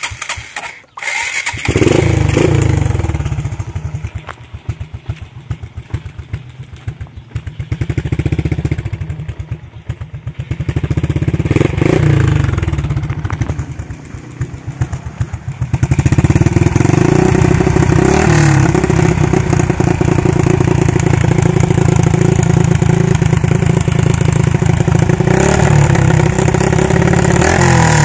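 Scooter engine fitted with an aftermarket Daeng power pipe exhaust, started in the first seconds and blipped through several short revs, then held loud at high revs from about 16 seconds on.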